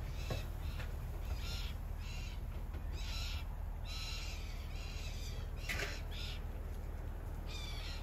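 A bird calling repeatedly in short calls, about ten in eight seconds at irregular spacing, over a steady low rumble.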